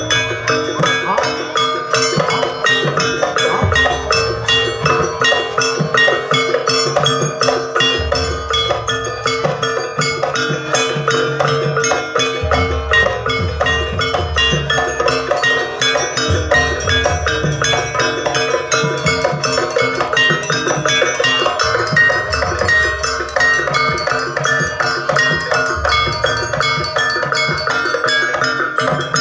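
Live jaranan accompaniment: a Javanese gamelan-style ensemble with fast, continuous metallic gong-chime strikes over steady sustained tones, and bursts of drumming that come and go every few seconds.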